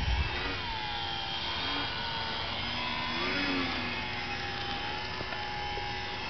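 Radio-controlled model airplanes' motors and propellers whining overhead, the pitch swinging up and down several times as the planes pass and turn.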